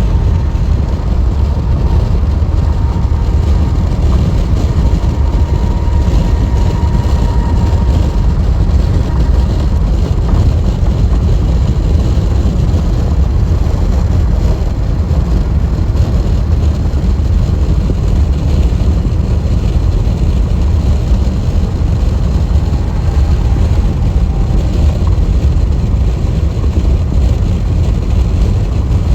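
Steady, loud road rumble of a car travelling at freeway speed: tyres on the pavement and engine noise, heavy in the low end and unchanging.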